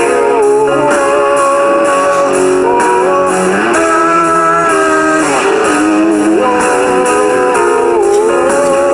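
Instrumental break of a rock song: a lead guitar plays a melody with sliding, bent notes over strummed guitar chords.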